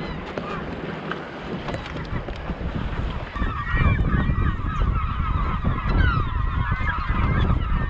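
Wind and water noise, joined about three and a half seconds in by many short overlapping honking calls of a flock of birds.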